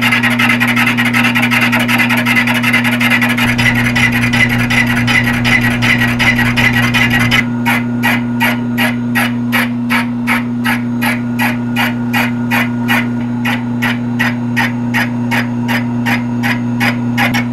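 Milling machine fly cutter taking a light finishing cut across a cast iron surface over a steady motor hum. The cut is a continuous scraping at first, then about seven seconds in it turns into a regular ticking about three times a second.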